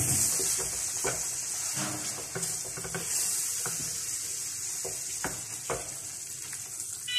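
Mango purée sizzling in ghee in a frying pan, stirred with a silicone spatula that scrapes and knocks against the pan now and then.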